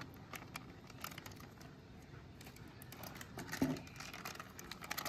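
Faint scattered clicks and light rustling as spice powder is spooned out over raw chicken in a steel bowl, with one sharper knock about three and a half seconds in.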